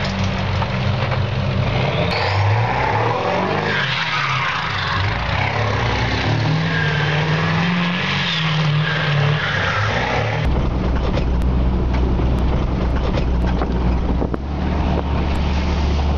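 A Jeep Cherokee and then a Ford F-350 pickup revving hard and spinning their tyres through deep slush, the engine pitch rising and falling over the rush of churned snow. About ten seconds in it cuts to a steady low engine drone with scattered sharp clicks.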